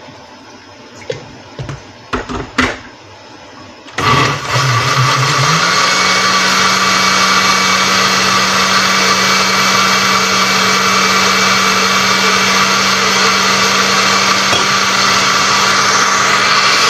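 A few knocks as the blender jar and lid are handled. About four seconds in, the countertop electric blender's motor starts, spins up over a second and a half and runs steadily, blending a jar of broccoli soup.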